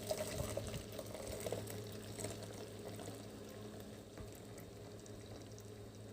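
Hot kencur decoction poured through a strainer into a stainless steel mug: a faint trickle of liquid with a few light clicks, fading toward the end.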